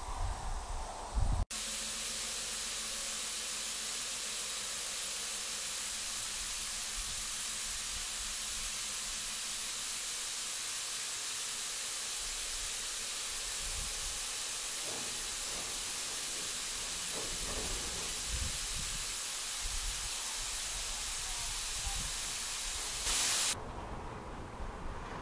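A steady, even hiss, with a few faint low thumps in the second half and a brief louder surge of hiss near the end.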